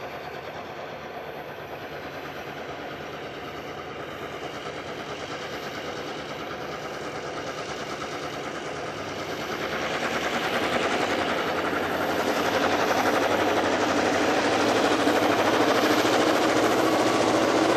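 Diesel locomotives 2207 (422 class) and Streamliner GM37 working under load as they haul a rail train past, their engines growing steadily louder as they draw near and loudest in the last third.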